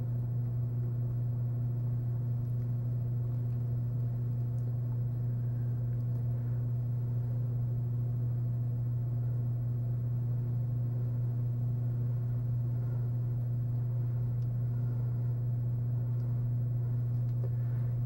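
Steady low hum, with a few faint light clicks of small metal latch parts being handled.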